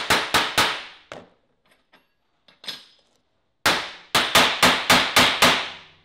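Hammer whacking a steel tin hive strap flat on a workbench: three blows and a lighter one, a pause of about two seconds, then a quick run of about eight blows.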